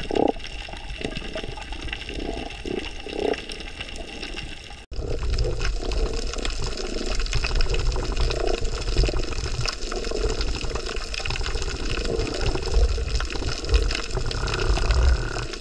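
Water noise picked up by an underwater camera: a steady wash of moving water with short irregular strokes. About five seconds in it changes abruptly at an edit to a denser sound with a strong low rumble.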